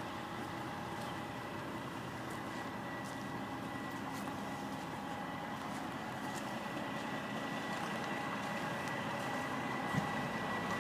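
Semi truck's diesel engine idling steadily, with a constant hum and a thin high whine; it grows a little louder as the trailer's side is passed, and there is a small click near the end.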